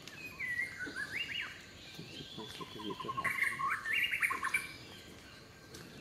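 White-rumped shama singing: a run of clear whistled phrases that slide up and down, broken by a quick, even trill about two and a half seconds in. The song fades out over the last second or so.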